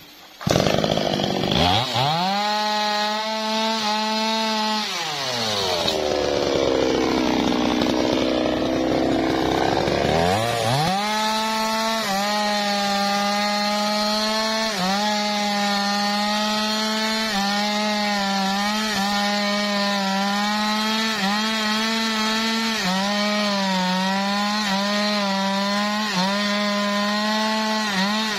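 Two-stroke chainsaw opening up to high revs and cross-cutting a teak log. The engine speed sags deeply for a few seconds as the chain bites, recovers, then holds high with brief small dips as the bar works through the wood.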